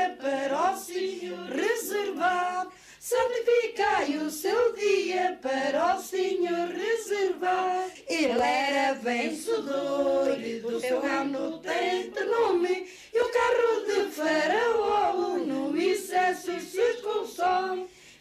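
Women's voices singing unaccompanied in Portuguese, a crypto-Jewish prayer song about Moses and Pharaoh's chariots drowning in the Red Sea, sung in lines with short breaks for breath.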